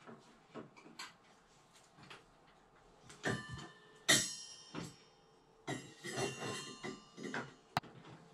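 Brass bathtub drain parts (overflow pipe, gasket and faceplate) clinking and knocking as they are fitted to the tub's overflow opening. Several taps ring briefly like metal, and a sharp click comes near the end.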